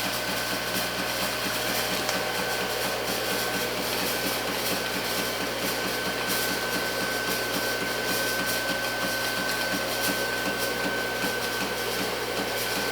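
Antari Z-350 haze machine running, its fan and motor giving a steady rush with a thin high whine, under a fast, regular clicking. The owner is unsure whether the clicking is normal.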